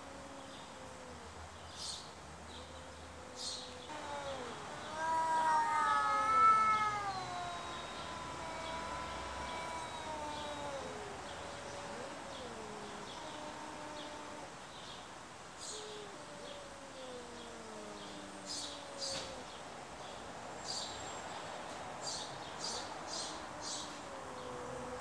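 A Siamese-type cat and a ginger cat yowling at each other in a standoff: long, wavering caterwauls that slide up and down in pitch. They are loudest and overlap about five to seven seconds in, then settle into lower, drawn-out moans.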